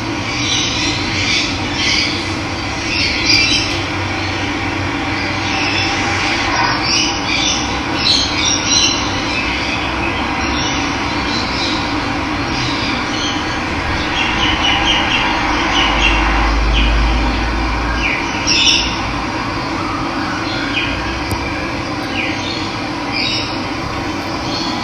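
Running water rushing steadily, with wild birds chirping and calling over it throughout. A brief low rumble comes about two-thirds of the way through.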